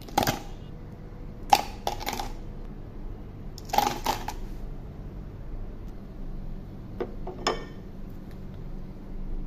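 Ice cubes in a clear plastic cup rattling and scraping against a knife blade as they are stirred and crushed, in three short bursts, followed a few seconds later by two light clicks.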